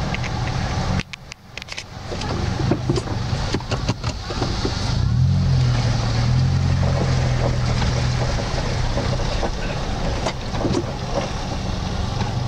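Suzuki SJ-series soft-top 4x4's engine running under load as it wades through a shallow river, with the sound of water washing around it. The sound dips briefly about a second in, and the engine pulls harder from about five seconds in.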